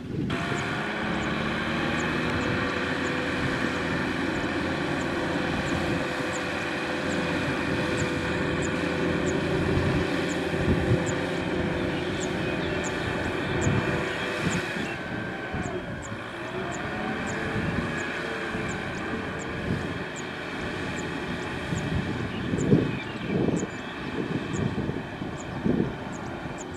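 Kubota M6040SU tractor's diesel engine running steadily under load while it pulls a loaded trailer through a harvested rice field. The pitch drops and recovers about halfway through.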